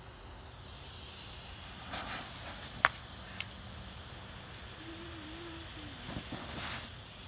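Ground smoke bomb hissing as it burns and spews white smoke, the hiss growing stronger about two seconds in. A sharp click cuts through it once near the three-second mark.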